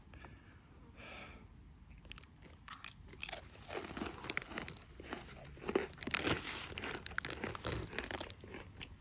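Kanpan, hard Japanese hardtack crackers, being bitten and chewed: irregular dry crunches, sparse at first and coming thick and fast from about three seconds in.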